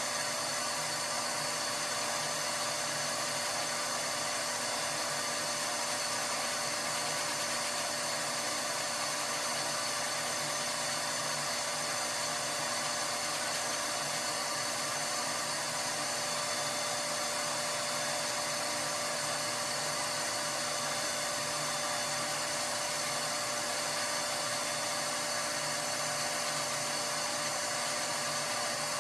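A small electric motor whines steadily at a constant pitch and level, the way a soot vacuum runs while a boiler's flue passages are cleaned.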